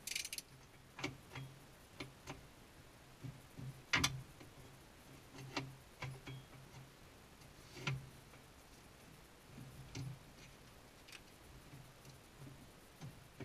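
Scattered light clicks and metal clinks, about a dozen at irregular intervals, the loudest about four and eight seconds in: hand tools and hardware being handled while working under the Jeep's gas tank.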